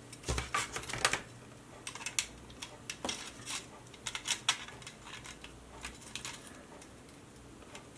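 Light, irregular clicks and taps of small parts being handled while the LED strip is fitted back together. They are busiest in the first few seconds and thin out near the end.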